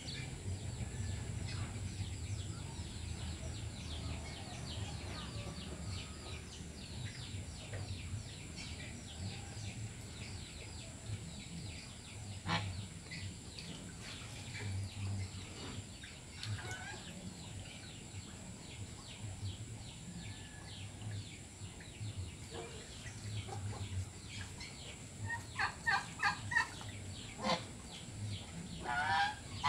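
Domestic geese dabbling with their bills in a muddy puddle: a steady patter of soft clicks and splashes, then a run of short honking calls near the end, the loudest sounds.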